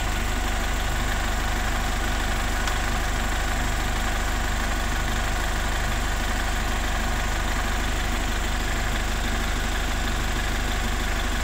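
Isuzu D-Max pickup engine idling steadily.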